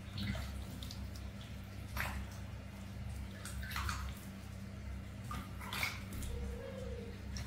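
Hand-poured water splashing and dripping onto a baby monkey's head during a bath, in a few separate splashes roughly two seconds apart, over a steady low hum.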